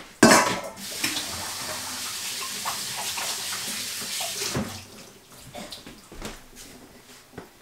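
A metal mixing bowl set down with a sharp clatter, then a kitchen sink tap running steadily while hands are washed, shut off after about four and a half seconds. A few light knocks follow.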